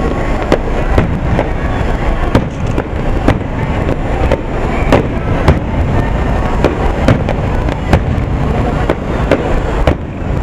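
Aerial firework shells bursting in a finale barrage: frequent sharp bangs, two or three a second, over a continuous low rumble.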